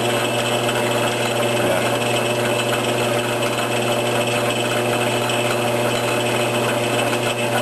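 Logan 922 metal lathe running under power through a single-point thread-cutting pass, a steady even machine hum, with something rattling on its cover.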